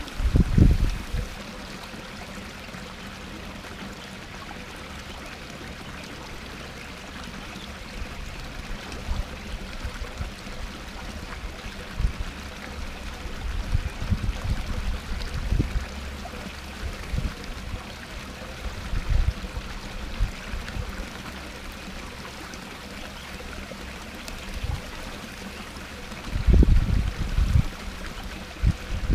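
Small garden-pond waterfall splashing steadily over rocks into the pond. Low rumbles of wind on the microphone break in about half a second in, now and then in the middle, and more strongly near the end.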